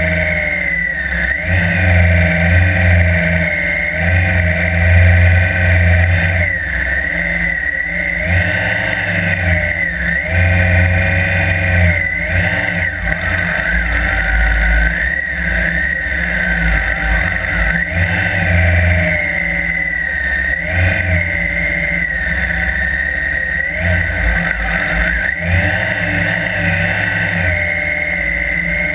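Police motorcycle engine running through the whole stretch, its revs rising and falling every second or two as the rider speeds up and slows through the course.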